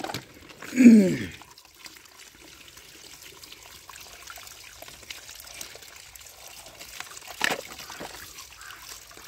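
Thin stream of tap water trickling and splashing into a plastic basket while toy vehicles are rinsed by hand. About a second in, a short voice exclamation falling in pitch is the loudest sound, and there is a single light knock about seven and a half seconds in.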